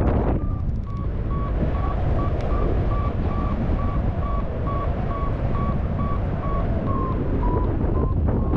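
Paragliding variometer beeping about two and a half times a second at a steady pitch, signalling climb in a thermal; the pitch dips slightly near the end. Wind buffets the microphone underneath.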